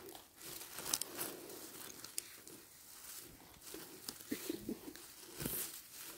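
Faint rustling and crackling on the forest floor as wild boletes are picked and handled, with a few sharp clicks.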